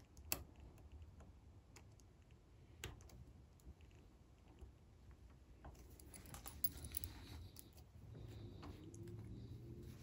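Faint small metal clicks and scraping as a snap ring is worked onto the bit-holder collar of a DeWalt impact driver with a small screwdriver. A few soft clicks are spread through the first half, and the ticking and rustling grow busier in the last four seconds.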